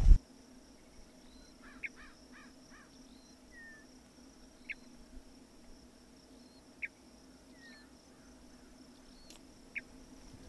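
Quiet canyon-side ambience: scattered short bird chirps and whistles, some sliding up or down, over a faint steady high insect buzz. The crunch of a boot on dry grass cuts off right at the start.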